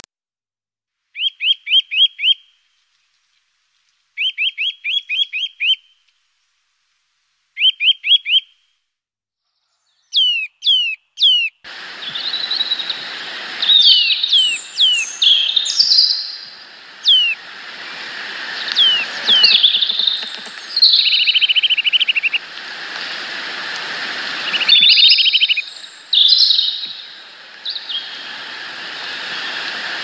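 Small garden songbirds calling. First come three short bursts of rapid, repeated chirps with silence between them. Then, from about twelve seconds in, a steady hiss sets in, with overlapping descending whistles and short buzzy trills over it.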